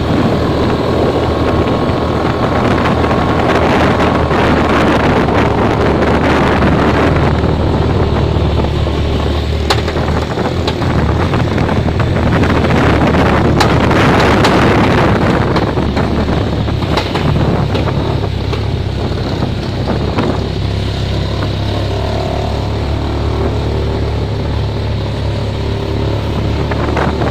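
Boat engine running steadily at low speed, with wind buffeting the microphone.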